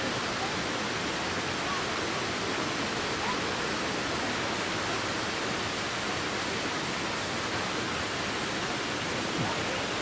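Waterfall pouring down a rock face into a pool, a steady, even rush of water.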